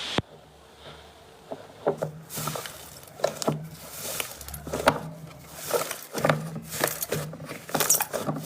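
Slime being squeezed and poked by hand, making irregular sticky clicks and crackling pops that come more often after the first couple of seconds.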